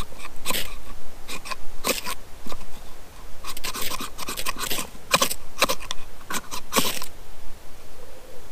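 Ferro rod (firesteel) scraped hard again and again over a bundle of dry clematis tinder: a dozen or so sharp, rasping strikes in irregular runs, throwing sparks to light a campfire.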